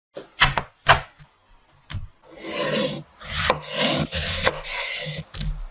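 Large kitchen knife cutting small oranges in half on a wooden cutting board: several sharp knocks of the blade on the board in the first two seconds, then longer rasping cuts through the peel, each ending in a knock on the wood.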